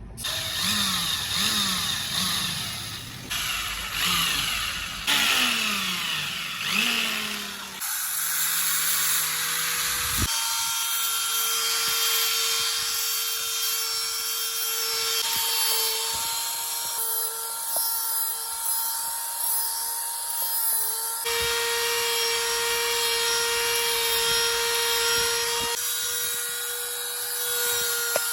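Rhythmic rubbing strokes of abrasive work on the rusty steel of a pocket knife for about eight seconds. Then a small electric tool's motor runs with a steady whine that shifts slightly in pitch a few times.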